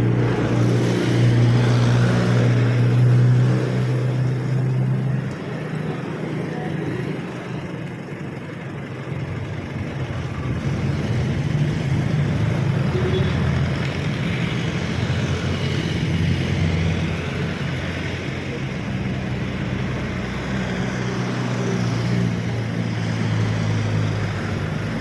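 Motor vehicle engine running steadily, louder for the first five seconds, dropping back for a few seconds, then building up again.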